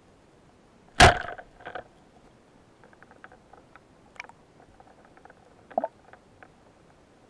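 Speargun fired underwater: a single sharp, loud crack about a second in, with a smaller knock just after. Light clicks and taps follow, as the metal spear shaft is handled against the gun and fish stringer.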